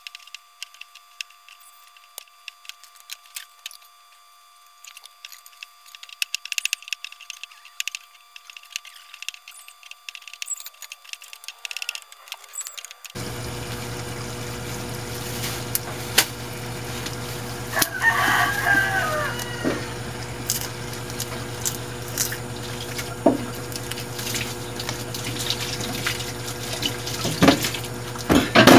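Kitchen knife tapping and clicking against a cutting board as mushrooms are sliced and garlic is handled. A rooster crows once in the background about 18 seconds in.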